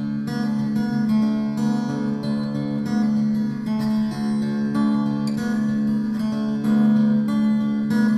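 Instrumental background music on a plucked and strummed acoustic guitar, a steady run of changing notes.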